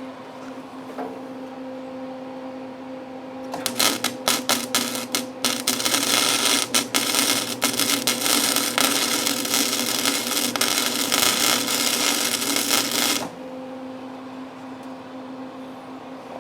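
Flux-core MIG welder arc crackling and sizzling as a bead is laid on sheet-metal truck bed panel: it sputters on and off a few times about four seconds in, then runs steadily for about nine seconds and cuts off suddenly. A steady hum runs underneath before and after the weld.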